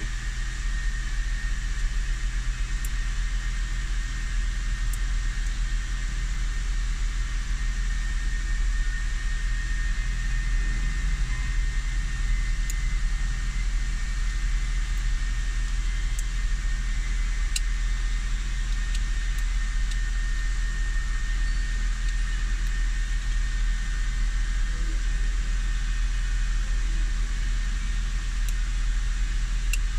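Honda Vezel engine idling steadily, a constant low rumble with a faint steady high whine over it, left running while its dual-clutch transmission carries out the synchroniser learning step of a calibration after a clutch replacement.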